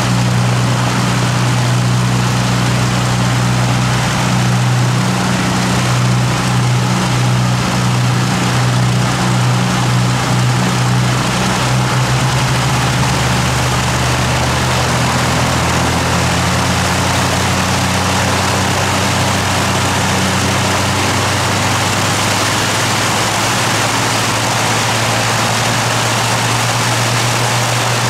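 A de Havilland Mosquito's two Rolls-Royce Merlin V12 engines running at idle on a ground run, propellers turning. It is a steady, pulsing drone, and the engine note shifts slightly about halfway through.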